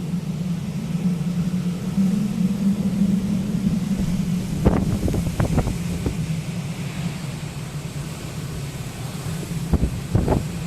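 Typhoon-force wind buffeting the microphone, a continuous low rumble, with a cluster of sharper buffets about halfway through and again near the end.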